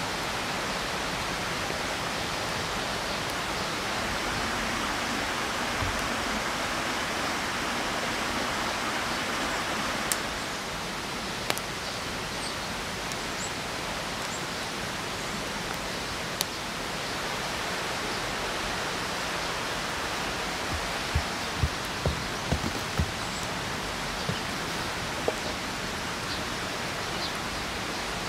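Steady rush of a forest stream flowing, with a few sharp clicks and, about three-quarters through, a cluster of soft knocks.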